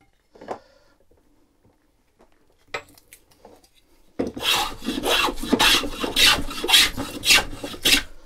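Stanley No. 4 bench plane shaving a wooden upright: a run of quick, closely spaced planing strokes starts about halfway through, after a few light knocks.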